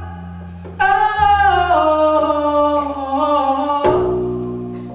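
Live jazz for dance: a female singer holds a slow phrase that steps downward in pitch over long, sustained double bass notes. A piano chord is struck near the end.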